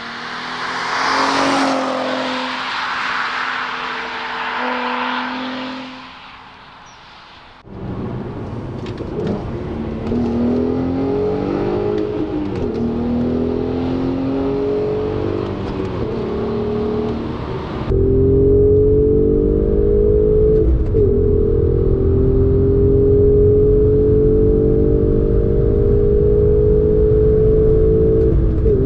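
Volkswagen Golf R32 Mk5's 3.2-litre VR6 engine under hard acceleration. It first rises and fades as the car passes the roadside, then, heard from inside the cabin, it pulls through the gears with the engine note climbing steadily and dropping at each upshift.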